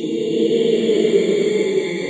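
Dark ambient horror drone: low, choir-like voices held on steady notes under a high, hissing shimmer.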